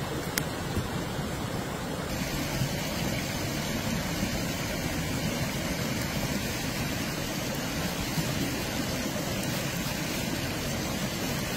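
A stream running steadily, an even rushing of water. There is one sharp click just after the start.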